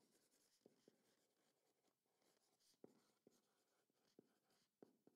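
Faint sound of a permanent marker writing on the surface of a box, with a few short scratchy strokes of the tip.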